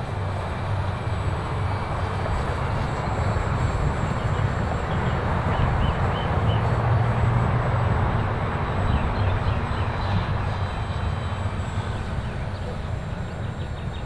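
Steady wind noise on the microphone, with the faint drone of a small electric RC P-51 Mustang's motor and propeller flying overhead, swelling slightly about halfway through.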